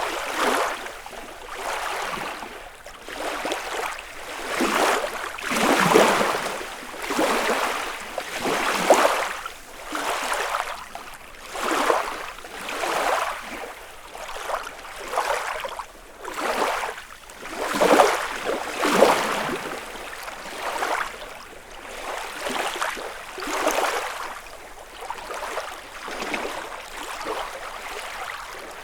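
Small lake waves lapping against the shore, one splash after another about once a second, some stronger than others.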